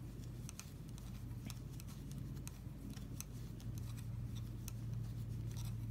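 Wooden knitting needles clicking lightly and irregularly as stockinette stitches are knitted, over a steady low hum.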